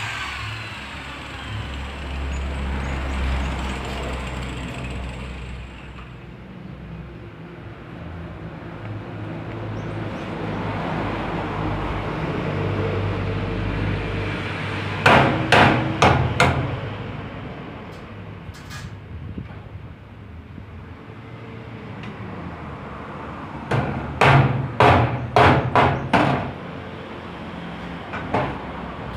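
Hammer striking metal in two quick runs of blows: about four some fifteen seconds in, and about six more a little before the end, over a steady background noise.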